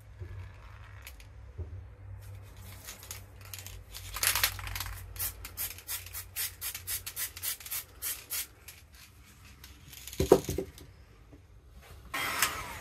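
An aerosol can of hologram glitter spray paint: one longer hiss, then a string of short hisses from quick taps of the nozzle, about three a second, for about four seconds. A single thump comes about ten seconds in, and another short hiss near the end.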